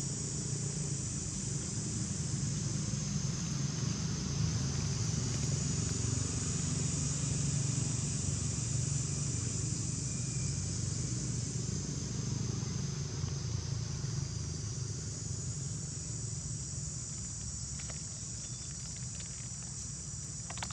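Steady high-pitched drone of an insect chorus over a low, steady rumble that is strongest through the middle.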